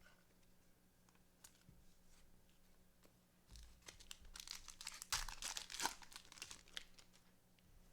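A trading-card pack's foil wrapper being torn open and crinkled for about three seconds, starting about three and a half seconds in, after a few light handling clicks.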